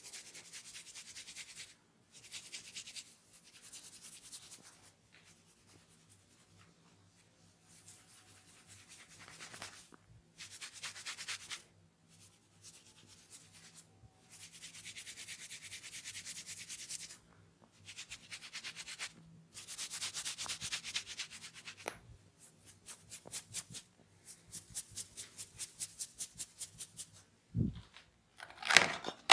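Hair cracking: strands of hair rubbed and twisted between fingers in a series of crackling, rustling passes, each a second or two long with short pauses. Later comes a quick run of rapid crackles, then two louder thumps near the end.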